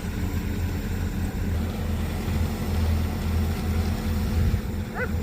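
Komatsu PC200-8 excavator's six-cylinder diesel engine running steadily with a low, even hum.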